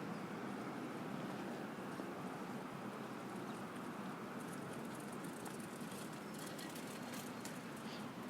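Steady city street ambience: an even hum of traffic, with faint light clicks over the second half.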